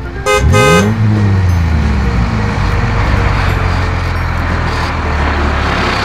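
Cartoon vehicle sound effect: a horn toots twice, then an engine revs up and runs steadily.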